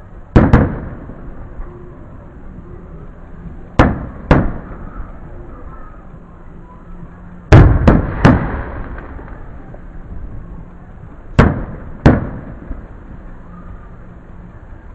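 Aerial firework shells bursting overhead: nine sharp bangs, coming in pairs and one group of three about every four seconds, each trailing off in a short echo.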